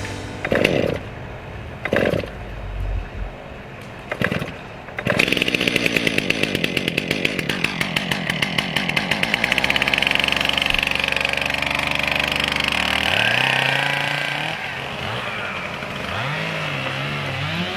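Chainsaw: a few short, sharp sounds in the first five seconds. Then, about five seconds in, the saw runs loud and fast at high throttle. Around two-thirds of the way through it drops to a lower speed, and its pitch rises and falls a few times near the end.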